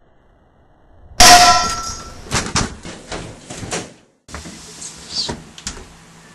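A single loud gunshot about a second in, with a ringing metallic tone after it, followed by a run of sharp knocks and clatter. The sound drops out for an instant, then a few more knocks.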